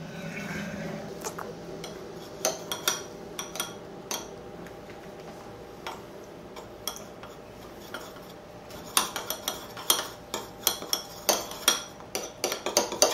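Metal spoon stirring peanut butter into hot water in a small ceramic bowl, clinking and scraping against the bowl. Scattered clinks at first, then fast, rapid clinking from about nine seconds in as the stirring turns to brisk whisking.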